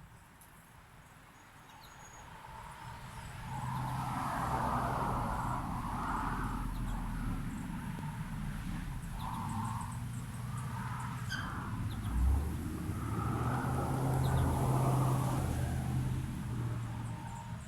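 A motor vehicle's engine running close by, a low steady hum that builds over the first few seconds and eases off near the end, with faint bird chirps above it.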